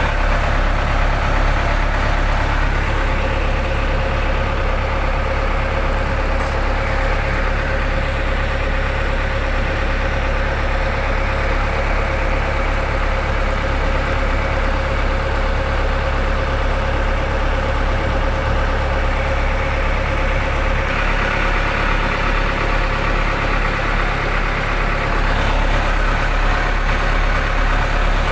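Fishing boat's engine running steadily at low revs, a constant loud drone. About three-quarters of the way through, its low note shifts slightly.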